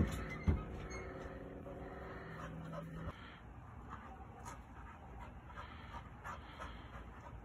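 A dog panting in quick, repeated breaths while it reaches up toward an opossum on a fence. Two sharp knocks, the loudest sounds, come right at the start and about half a second later, and a steady low hum stops about three seconds in.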